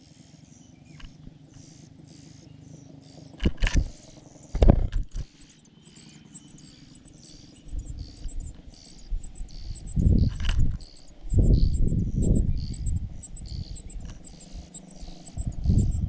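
A cricket chirping steadily, a thin high chirp about three times a second. It is broken by several loud low thumps and rustles, the loudest sounds, in a cluster around a third of the way in and again near the end.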